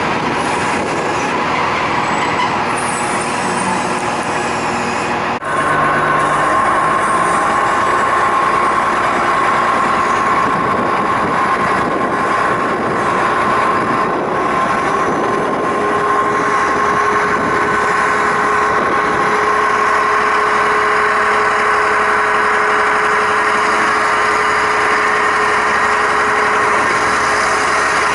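Diesel railcar running along the track, heard from on board: a steady drone with a whining tone that gets a little louder after about five seconds, joined by a second, lower whine about halfway through.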